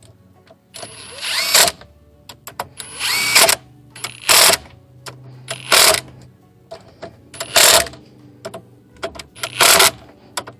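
Cordless power driver on its low speed setting run in about six short bursts, spinning up and loading as it drives in the new alternator's 13mm mounting bolts.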